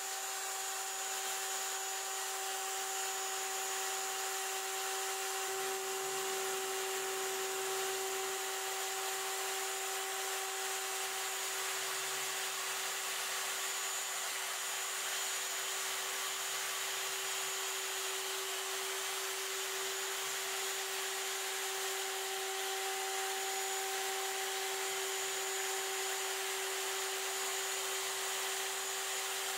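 CNC router spindle running with a steady high whine while a V-bit carves a sign into precision board (high-density urethane foam), with an even hiss from the cut.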